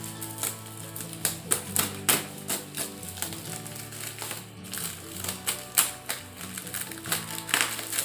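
Cardboard box and packaging being opened and handled: irregular clicks, taps and rustles, several a second, over background music.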